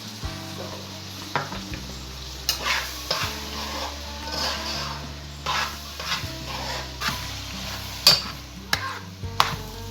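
A spoon stirring and scraping cooked mince in a hot pot, with irregular knocks and scrapes against the pot over a steady sizzle.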